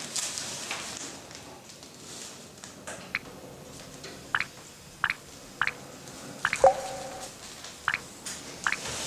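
Water dripping from a leak overhead, single drops falling roughly once a second from about three seconds in, with one louder drop a little past the middle that rings briefly. A newspaper rustles in the first second.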